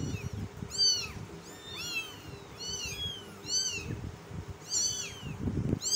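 Young kittens mewing over and over: high, thin cries that rise and fall, about two a second.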